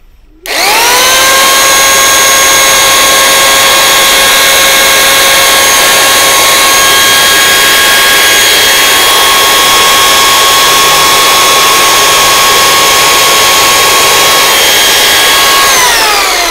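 Parkside PSTK 800 C3 800 W barrel-type jigsaw switched on and running with a very loud, steady high whine, then switched off near the end and winding down with a falling pitch. It is extremely noisy, measuring over 100 dB at working distance.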